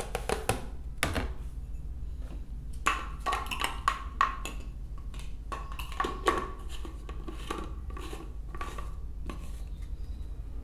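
Plastic food containers and a small cup handled on a tabletop: a run of light knocks, taps and clatters, busiest a few seconds in, with one sharper knock after that.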